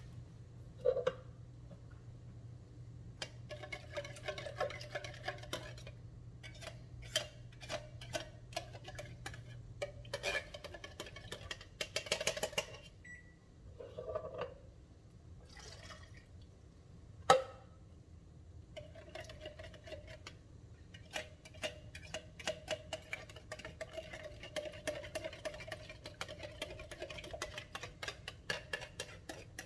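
Kitchen clatter: a spoon and utensils clinking and scraping against pots and bowls in many light, irregular clicks, with two sharper knocks, about a second in and a little past halfway.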